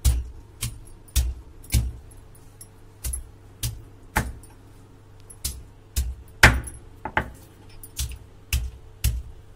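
Stone muller (batta) pounding small unpeeled potatoes on a flat grinding stone (sil-batta), crushing them coarsely: about fourteen sharp stone-on-stone knocks, roughly two a second, with a couple of short pauses.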